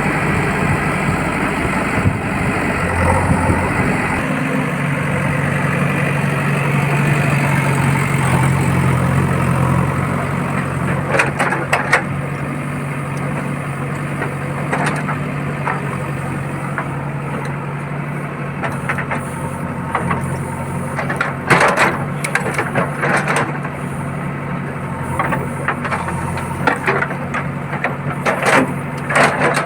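JCB backhoe loader's diesel engine running steadily, with clusters of sharp knocks and cracks three times as the bucket works the roadside debris.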